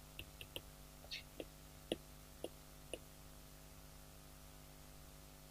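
Faint taps and clicks of a marker writing on a whiteboard, about eight soft ticks over the first three seconds, over a low steady electrical hum.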